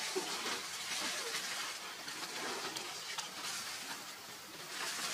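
A steady high hiss of outdoor background noise, with a few faint clicks.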